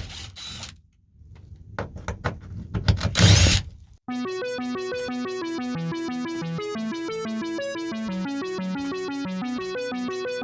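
A few clicks and knocks and a short loud rustling clunk, then about four seconds in a cut to electronic background music: a synthesizer playing a quick, steady run of repeating keyboard notes.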